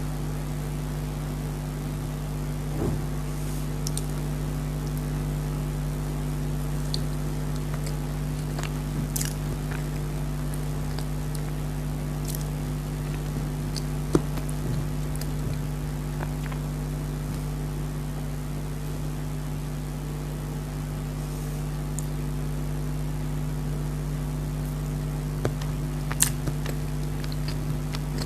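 A person eating chocolate dry fruit cake: scattered soft chewing and mouth clicks over a steady low hum.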